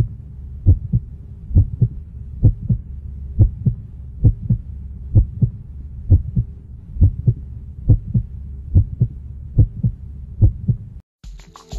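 Heartbeat sound effect: a steady lub-dub double thump about once a second over a low hum, stopping suddenly about eleven seconds in.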